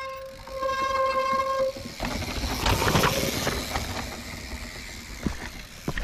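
A mountain bike's disc brake squeals in one steady, high tone for nearly two seconds. The bike then rattles and rushes over rough, rooty trail, loudest about three seconds in, with scattered knocks of the wheels and frame.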